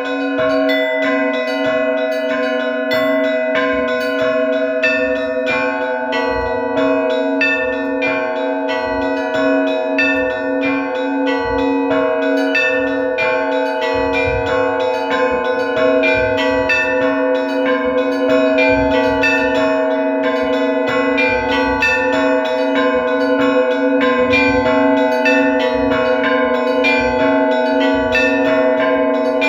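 Orthodox church bells rung together: a deep bell struck at a steady beat under quick, rhythmic strikes of smaller, higher bells, their tones ringing on and overlapping. About six seconds in, a mid-pitched bell joins the peal.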